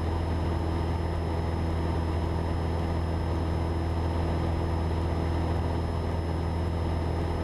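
Cessna 172's engine and propeller droning steadily in flight, heard from inside the cabin.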